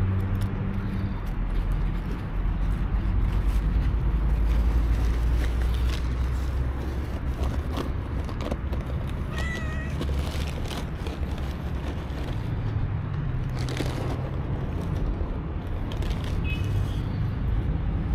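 Cat meowing twice: a short meow about halfway through and a fainter one near the end, over a steady low rumble.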